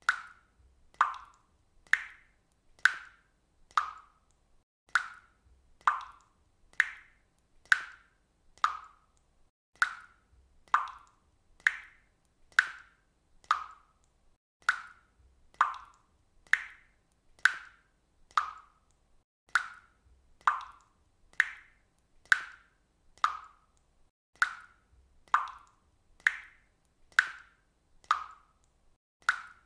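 Water dripping steadily from a faucet, about one drop a second. Each drop lands with a short, clear plop, its pitch varying a little from drop to drop.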